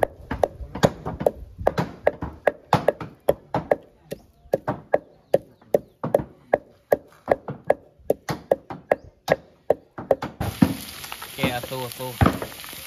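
Knife or cleaver chopping on a wooden board, about two to three even strokes a second, the way raw pork is minced for a raw meat salad. About ten seconds in, the chopping stops and a sizzling hiss like food frying takes over.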